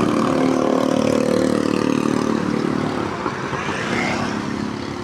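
Tour coach's diesel engine running with an even pulsing beat, its tone thinning and fading after about two and a half seconds.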